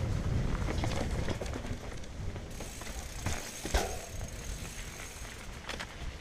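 Mountain bike riding down a rocky dirt trail: tyres crunching over dirt and stones, the bike clicking and rattling over bumps, with low wind rumble on the microphone. One sharper knock about three and a half seconds in.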